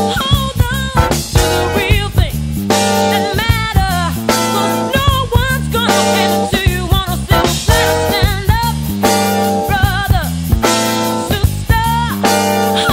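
Music with a steady beat: a song with singing, guitar, bass and drums.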